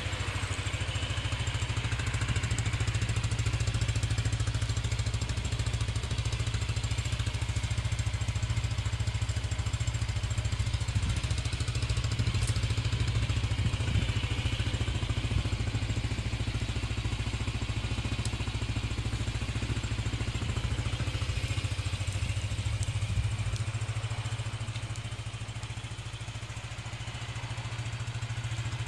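Yamaha NMAX scooter's engine idling steadily with a low hum, easing off briefly near the end.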